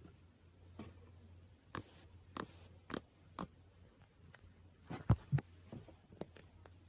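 Slime being squeezed and poked by hand, giving irregular sticky clicks and pops, with a louder pair of pops about five seconds in.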